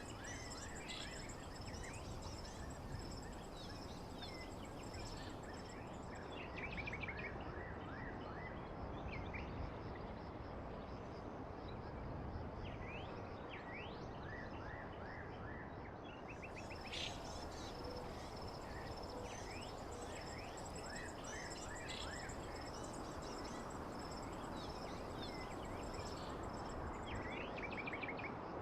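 Nature ambience of birds chirping in short repeated bursts over a high, pulsing insect trill and a constant even hiss. The insect trill drops out for several seconds midway and then comes back.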